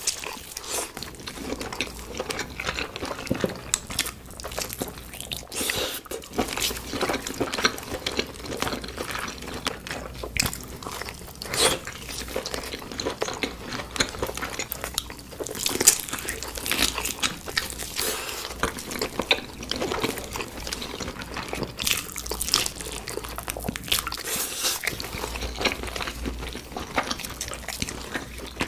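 Close-miked eating: crunchy bites and chewing of meat, with wet mouth sounds, a dense run of irregular crackles and clicks.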